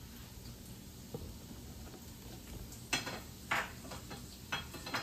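Utensil scraping and knocking against a frying pan as diced potato, radish and onion hash browns are stirred and flipped, with a few sharp scrapes in the second half over a faint sizzle of the bacon grease.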